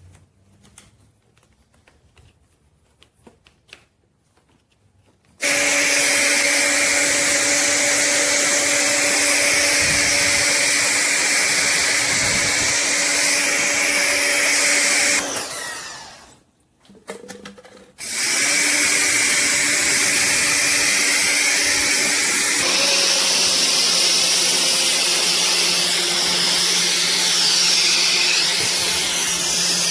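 Electric pressure washer motor and pump starting up and running loudly with a steady hum and hiss. It starts about five seconds in, winds down and stops about halfway through, starts again a couple of seconds later, and settles to a lower hum a few seconds after that.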